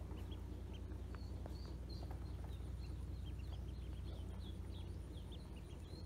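A group of domestic ducklings peeping, many short high calls in quick succession, over a steady low background rumble.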